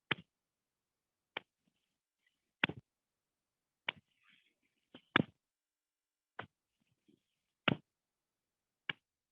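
Hands slapping against the body as the arms swing from side to side, about one slap every one and a quarter seconds, alternately louder and softer, left and right in turn.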